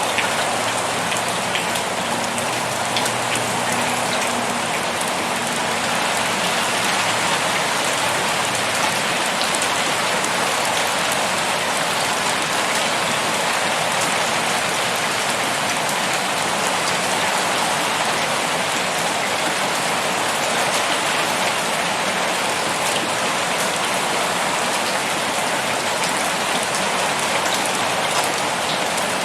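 Steady rain falling: an even hiss of rain with scattered drop ticks, unchanging throughout.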